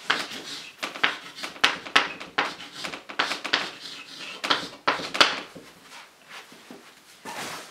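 Chalk writing on a blackboard: a quick run of short taps and scratches as a word is written, stopping about five seconds in.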